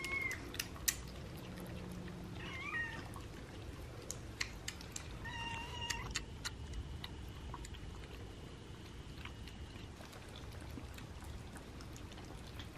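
Kittens eating wet food, with many small wet chewing and lapping clicks, and a few short meows from the kittens, about three of them in the first six seconds.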